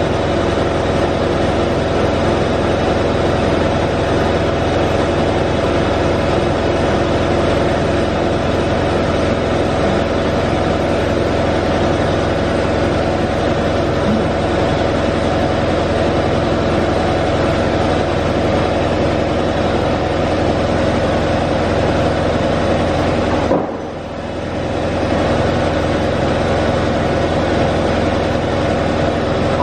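Doosan DBC 130 CNC horizontal boring mill running under power: a steady mechanical hum with several steady tones. About 24 seconds in the sound drops sharply, then builds back up over a couple of seconds.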